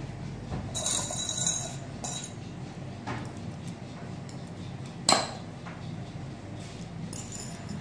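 Glass canning-jar lids and metal jar clips being handled on a metal baking tray: light glass-on-glass clinks, a brief scrape about a second in, and one sharp clink about five seconds in.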